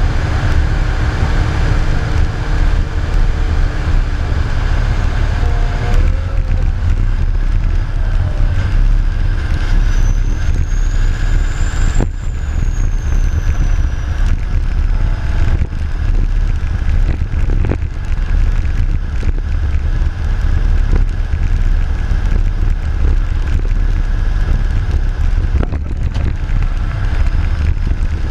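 Wheel loader's diesel engine and drivetrain running as the machine drives, a steady loud low rumble close to the mounted camera. A faint high whine rises and falls about ten seconds in.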